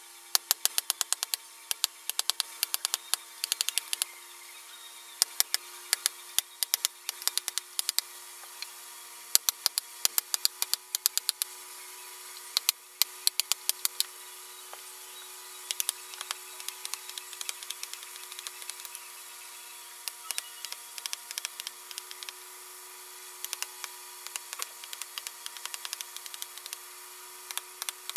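Quick runs of light taps of a wooden mallet on a hand carving chisel as it chips into hardwood, several strikes at a time with short pauses, softer in the second half. A steady hum runs underneath.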